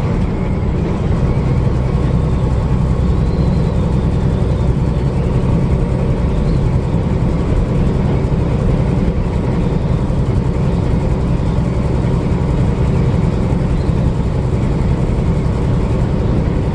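Semi truck's diesel engine and road noise droning steadily inside the cab while driving.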